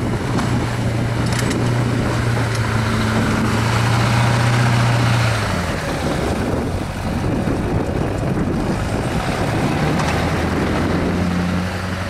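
Chevrolet Silverado dually's 6.6 L Duramax LB7 turbo-diesel V8 working under load as the truck pushes snow with a Western V-plow. The engine note is steady and strong in the first half, eases off about halfway, then builds again before dropping near the end.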